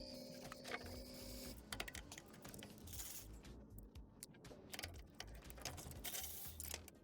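Rapid, irregular light clicks and clatter. A steady hum underneath stops about a second and a half in.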